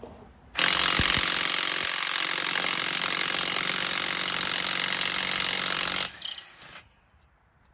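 Bauer 1/2-inch cordless impact wrench hammering on a heavy-duty truck's lug nut in one continuous burst of about five and a half seconds, starting suddenly and cutting off.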